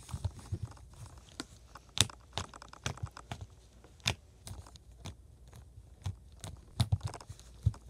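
Flarp noise putty softened with hand sanitizer being kneaded and stretched by hand close to the microphone, giving irregular sticky clicks and pops, a couple of them sharper and louder.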